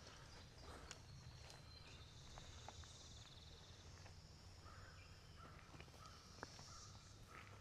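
Near-silent woodland ambience: a faint insect trill about two seconds in, with a few soft clicks and faint bird chirps.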